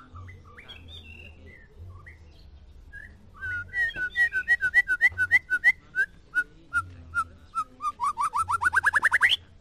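White-rumped shama singing: after a few faint notes, loud clear whistled phrases start about three and a half seconds in as a run of quick repeated notes, ending in a fast series that climbs steeply in pitch and cuts off suddenly near the end.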